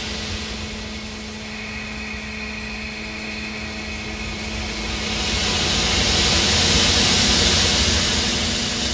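Ambient drone composition for relaxation: a steady low hum and a held tone under a wash of hiss. The hiss swells louder about five seconds in and eases near the end.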